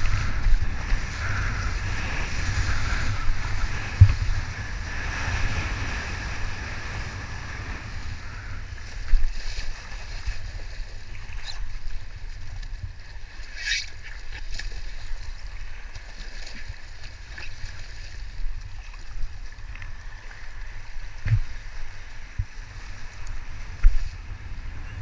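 Wind buffeting the microphone over the hiss of water rushing under a kiteboard. It eases off about eight seconds in as the board slows in the shallows, with a few sharp knocks along the way.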